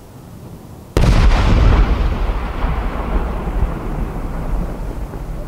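A large Japanese aerial firework going off with one sharp, loud boom about a second in, followed by a long rolling echo that slowly fades.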